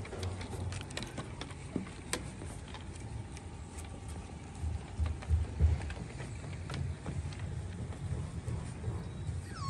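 Light, scattered taps and clicks of puppies' paws on wooden deck boards over a continuous low rumble that swells about five seconds in.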